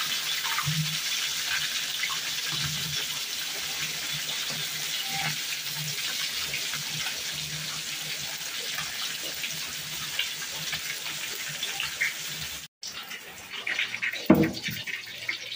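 Fish frying in hot oil in a wok, a steady sizzle that cuts off suddenly near the end, followed by a few knocks.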